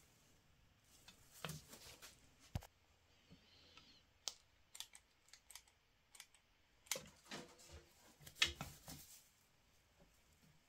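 Faint, irregular clicks and light knocks of small hard objects being handled, spaced unevenly, with the sharpest ones a second or two apart.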